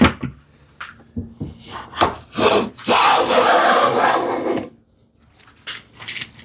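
Sharp hand plane taking a thick shaving off the end of a wooden drawer back, trimming it to a knife line. A short stroke and then a longer one of about a second and a half, with a few light knocks before and after.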